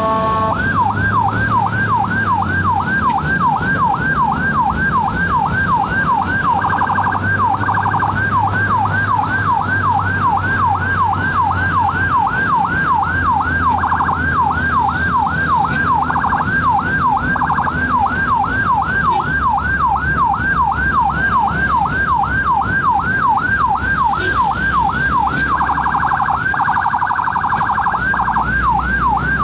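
Ambulance siren in yelp mode: quick rising whoops, about three a second, with stretches of a faster warble, over the vehicle's engine and road noise. Just under a second in, a steady multi-tone blare gives way to the yelp.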